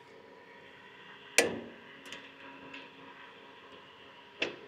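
Click-type torque wrench on a duct coupling nut of an A320 CFM56-5B bleed valve. There is one sharp metallic click about a second and a half in, with a short ring, then a few faint ticks and another click near the end.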